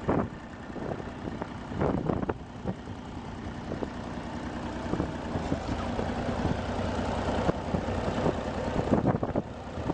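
Ford 1710 compact tractor's three-cylinder diesel engine running steadily, getting gradually louder from about halfway through. A few sharp thumps come near the start and again near the end.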